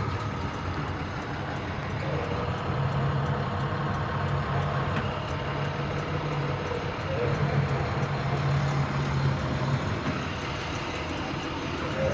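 A vehicle engine running steadily with a low hum.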